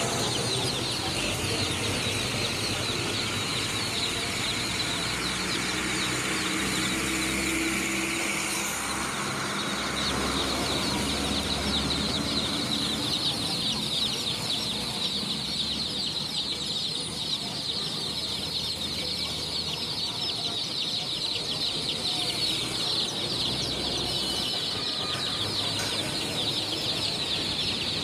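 A dense chorus of peeping from hundreds of baby chicks: constant overlapping high-pitched cheeps that grow thicker about a third of the way in.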